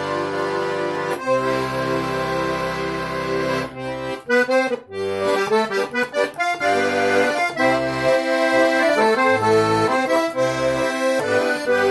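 Russian garmon with a handmade four-voice reed set in C major playing a tune with a powerful, full sound: sustained chords over bass notes, a run of short, detached chords about four to six seconds in, then held chords again.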